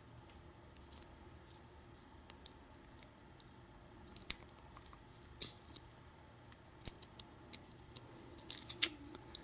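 Lock pick and tension wrench working the pins of a pin-tumbler challenge lock: scattered small metallic clicks and scrapes, a few sharper ones in the middle and a quick run of clicks near the end.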